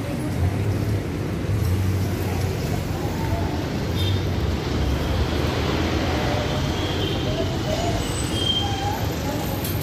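Busy city street traffic: a steady rumble of passing vehicle engines.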